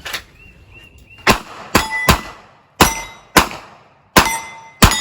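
Revolver shots fired at steel targets, about seven in under four seconds at an uneven pace, several followed by the clang and brief ring of a hit steel plate.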